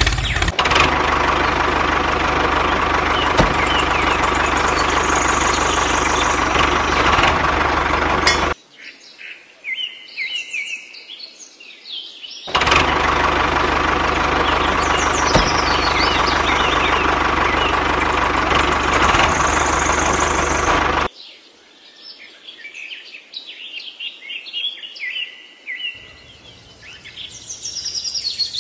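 Tractor engine running steadily. It cuts off about a third of the way in, starts again a few seconds later, and stops for good about two-thirds through. Birds chirp in the quiet gaps.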